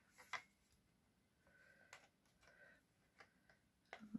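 Near silence: room tone with a few faint clicks and taps as paper is slid into place on a paper trimmer.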